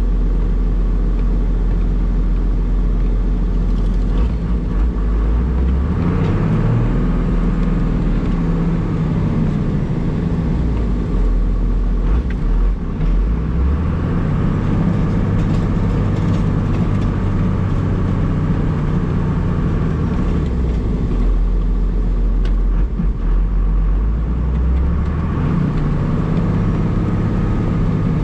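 1994 Dodge Ram's 5.9-litre Cummins inline-six turbodiesel heard from inside the cab while plowing, revving up and settling back several times: the engine pitch climbs about six seconds in, drops around twelve seconds, climbs again, and falls and rises once more near the end.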